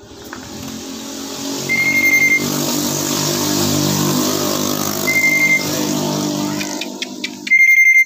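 A motor vehicle engine passing close by, building up over the first couple of seconds, holding, then dying away near the end. Three short high-pitched beeps come over it, around 2 s, around 5 s, and right at the end.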